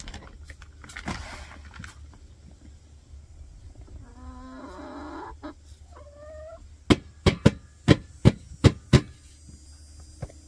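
Dry poultry feed pouring from a bag into a galvanized metal can, then chickens clucking, and near the end a quick run of about seven sharp knocks.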